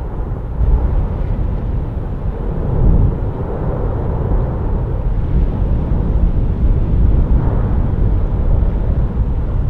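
Erupting Cumbre Vieja volcano on La Palma giving off a continuous deep rumble that swells and eases a few times, with no distinct single blast.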